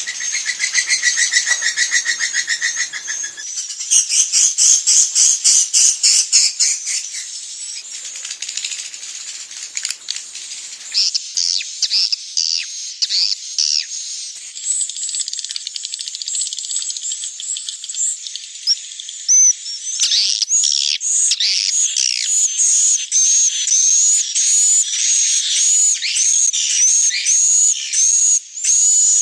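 Swiftlet calls from a swiftlet-house lure recording of the dusk roosting call. High buzzing trills and a fast rattle of clicks come first, then twittering chirps. From about two-thirds of the way in, a steady series of short falling chirps repeats.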